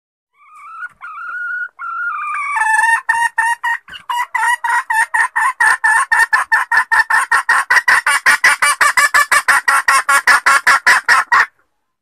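Red junglefowl hen calling: a few drawn-out clucks, then a fast run of short clucks, about five or six a second, that stops abruptly near the end. It is a hen's lure call, used to draw in jungle fowl roosters.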